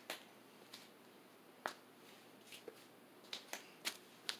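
Hampton Bay St. Claire ceiling fan running on low in reverse with a faint hum, and about eight sharp light clicks at irregular intervals over it.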